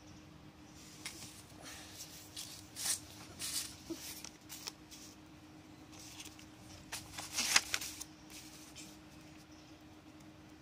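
Spiral-bound notebook pages being handled and turned: paper rustling in two spells, one from about a second to five seconds in, the other around seven to eight seconds in, the latter the loudest.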